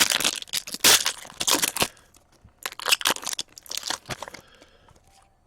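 An O-Pee-Chee Platinum hockey card pack wrapper being torn open and crinkled: two spells of loud rustling and tearing, the second starting about two and a half seconds in, then fainter handling.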